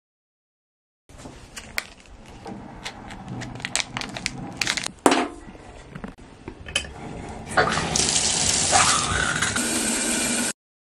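Scattered knocks and clicks, then a shower running from about eight seconds in: a steady hiss of spray from the shower head onto the tub, which cuts off suddenly near the end.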